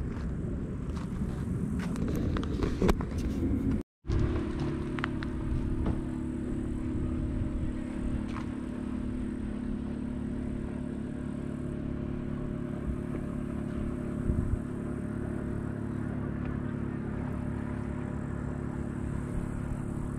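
Motorhome driving on the road: steady engine drone and road rumble. The sound cuts out for a moment about four seconds in, then resumes as an even drone.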